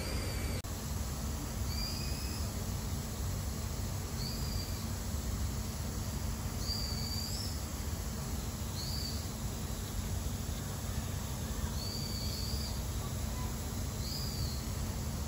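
A bird calling with short, high, arched notes repeated every second or two, over a steady low rumble of outdoor background noise.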